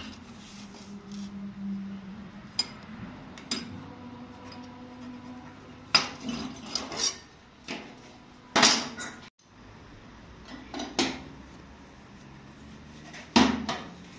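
Metal tool parts being handled: an irregular string of sharp clanks and clinks with short ringing, the loudest about eight and a half seconds in and near the end.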